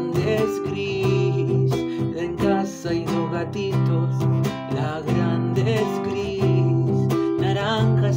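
Acoustic guitar strummed in a steady rhythm, ringing chords changing every second or so.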